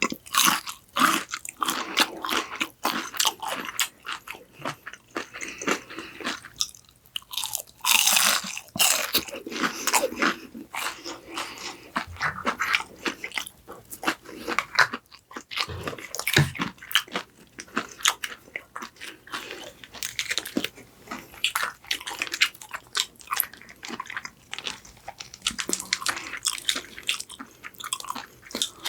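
Crisp fried food being bitten and chewed, with dense, irregular crunching throughout.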